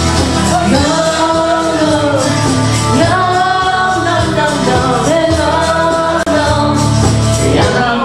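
A woman singing into a microphone over a karaoke backing track, holding long notes that swell and bend in pitch.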